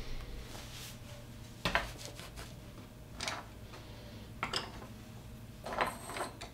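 Desk handling noises: a sharp tap about a second and a half in, then three short clatters and rustles about a second apart, as a smartphone on a small tripod and the art supplies around it are handled on a wooden desk. A faint steady room hum lies underneath.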